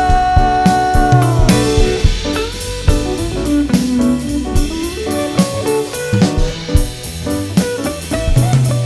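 Live band instrumental break: an electric guitar leads over a drum kit, opening on a long held note that slides down about a second and a half in.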